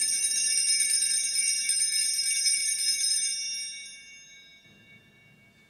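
Altar bells (a cluster of small sanctus bells) shaken rapidly for about three seconds, then left ringing away. They mark the elevation of the host just consecrated.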